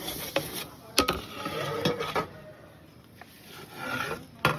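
A few sharp knocks and clatters, one about a second in, one near two seconds and one near the end, with faint voices in the background.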